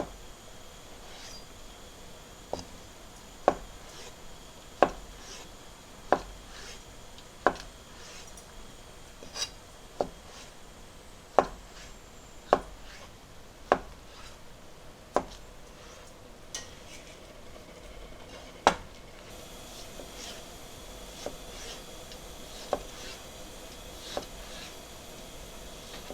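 Slow, regular knocks of a knife on a wooden cutting board, about one every second and a half, with fainter taps after about nineteen seconds.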